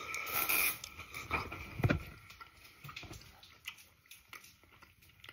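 A person biting into and chewing roast lamb on the bone, with wet mouth sounds and clicks, loudest for the first two seconds and dying down to occasional faint smacks.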